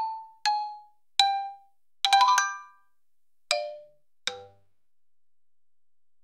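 Instrumental break of an AI-generated song: single xylophone notes struck one at a time, each dying away quickly and stepping down in pitch, with a quick flurry of notes about two seconds in. Two lower notes follow near the four-second mark, then a near-silent gap of about a second and a half.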